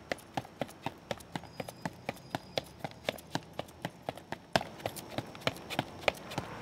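Running footsteps on a pavement: a fast, even rhythm of about four steps a second, with one louder step about four and a half seconds in.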